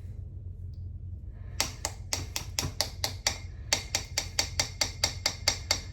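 A whisk tapping quickly and evenly against the side of the crock pot, about five strikes a second, with a short break partway through, as the tomato paste is mixed in.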